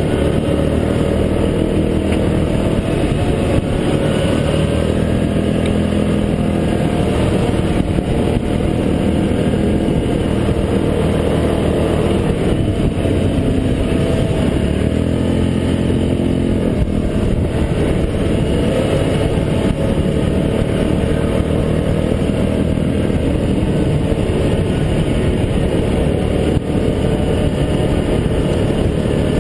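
Yamaha Grizzly 700 ATV engine running steadily while riding a trail, with a dense rumble. Its pitch rises and falls with the throttle twice in the middle stretch.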